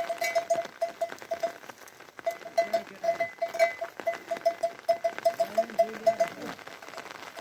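Goats bleating in short calls, several times. A fast, steady run of high chirping pips repeats alongside them.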